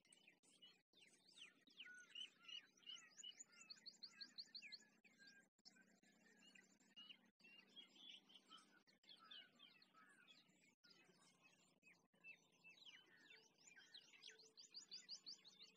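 Faint birdsong: several birds chirping and whistling at once, with a rapid high trill about three seconds in and another near the end.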